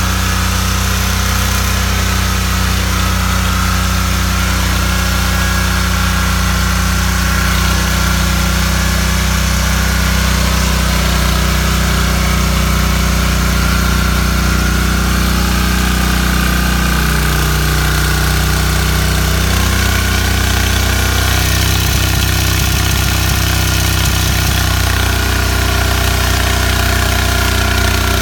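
Petrol rotary tiller's small engine running steadily while tilling soil, its note shifting slightly partway through as the load changes.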